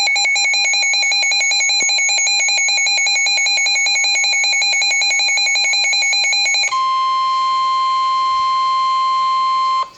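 Emergency Alert System attention tones for a severe thunderstorm warning: a loud, rapidly pulsing, buzzy alarm tone that about two-thirds of the way through switches abruptly to a single steady pure tone, which cuts off just before the end.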